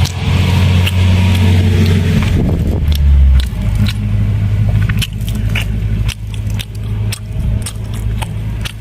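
A steady low engine hum from a vehicle running nearby, which drops and changes about three and a half seconds in, with scattered light metallic clicks and taps over it.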